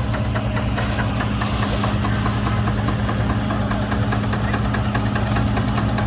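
An engine running steadily, with a low hum under a rapid, even ticking.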